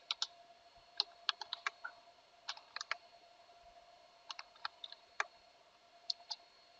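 Typing on a computer keyboard: irregular keystrokes in short clusters with brief pauses between them, over a faint steady hum.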